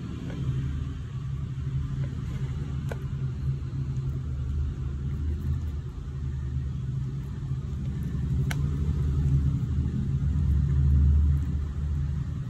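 A low, steady rumble that swells louder about eight seconds in and eases off near the end, with a few faint clicks.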